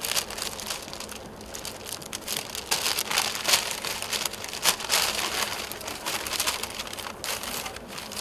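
Irregular crinkling and rustling of packed suit pieces being handled and unfolded. It is busiest and loudest from about three to five seconds in.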